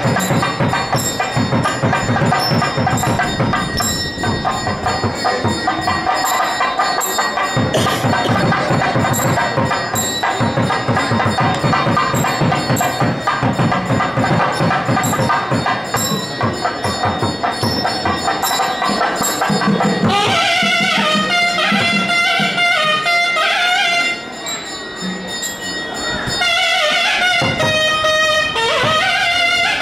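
Loud live temple music: drumming with a steady metallic beat for about twenty seconds, then a reed wind instrument takes up a melody that steps from note to note over lighter percussion.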